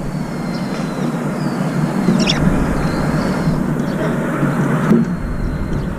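Steady low rumble of distant city traffic, with faint high whistles and one brief wavering bird call about two seconds in.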